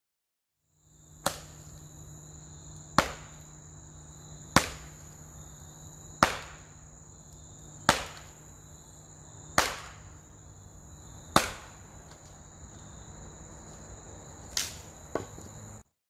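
Firewood being split smaller with sharp chopping strikes, seven of them about every 1.7 s, then two quicker ones near the end. Crickets chirr steadily behind.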